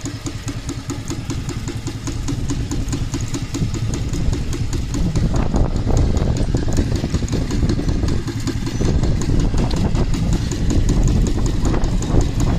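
Scale Case steam traction engine running under steam, its exhaust chuffing in a quick, even beat over a low mechanical rumble as it is driven along.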